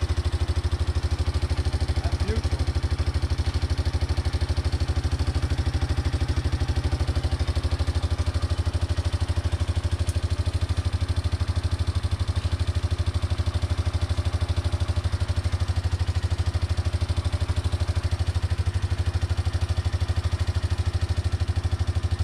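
1989 Yamaha Moto-4 350's single-cylinder four-stroke engine running steadily at idle, with a rapid, even pulse.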